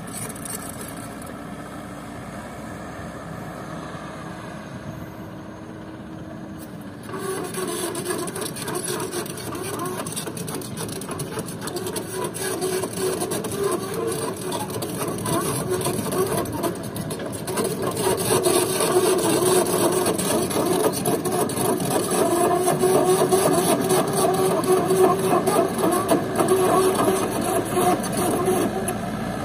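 Komatsu PC78US mini excavator running: its diesel engine steady and fairly quiet at first, then louder from about seven seconds in as the machine works. Over the engine there is a wavering whine and a dense, rasping mechanical noise.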